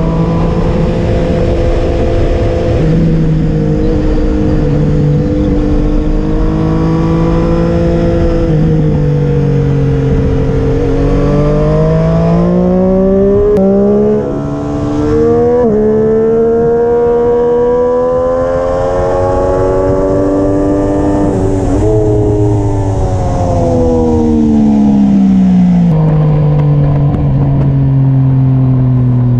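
Triumph Street Triple RS's three-cylinder engine heard on board at track speed, its pitch climbing through the revs, dipping briefly about halfway through, climbing again, then falling away for several seconds before settling lower near the end.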